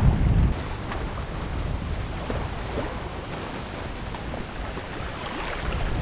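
Wind buffeting the microphone, heaviest in the first half-second, over the steady wash of sea water along a sailboat's hull under way.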